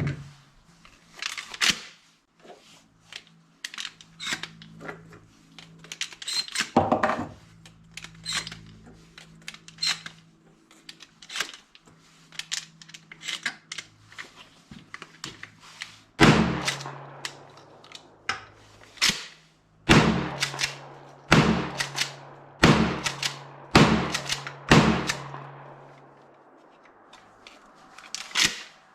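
Maverick 88 20-gauge pump shotgun: light clicks and clacks of the gun being handled and loaded, then six shots fired in quick succession, about a second apart, from about halfway through. It fires on each shot, a sign that the hammer now drops fully.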